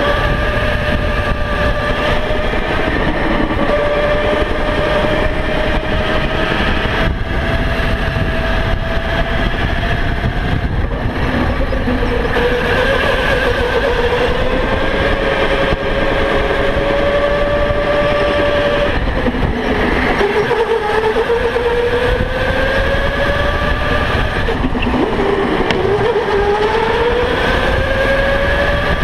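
Electric go-kart motor whining as the kart laps, its pitch climbing on the straights and falling away twice in the latter part as it slows for corners before rising again. Heavy low wind rumble on the onboard microphone.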